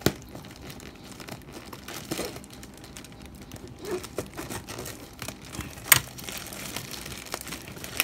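Plastic courier mailer bag crinkling and rustling as it is handled and pulled at to open it, with a few sharp snaps: one at the start, a loud one about six seconds in, and one at the end.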